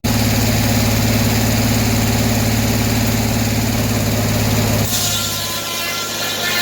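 Sawmill engine running steadily at speed; about five seconds in the blade starts into an oak log, adding a high rasping cutting noise as the engine sound changes.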